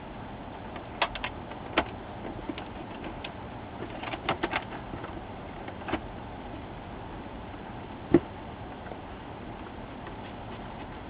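Scattered light clicks and knocks of a hand screwdriver and screws against the Dell E177FPf monitor's case as its two halves are held together and screwed back up. There is a cluster of clicks about four seconds in and a sharper knock about eight seconds in, over a steady faint hiss.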